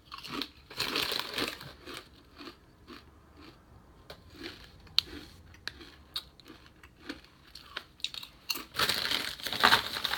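Crunching and chewing of kettle-style jalapeño potato chips close to the microphone, a string of short sharp crunches, with crinkling near the start and again near the end.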